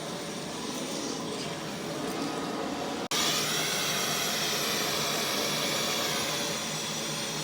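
Dyson V12 Detect Slim cordless stick vacuum running with a steady whine. About three seconds in it cuts out for an instant and comes back louder, with a stronger high whine.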